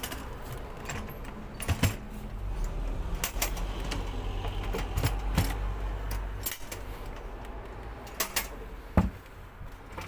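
Irregular plastic and metal clicks and knocks as a canister vacuum cleaner's lid is unclipped and lifted off and its filter cage is handled.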